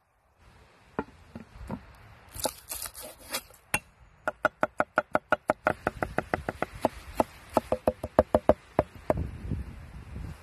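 Cleaver chopping garlic on a wooden board: a long, fast run of sharp knocks, about six a second, that starts about four seconds in and stops about a second before the end. It is preceded by a few separate knocks and scratchy strokes.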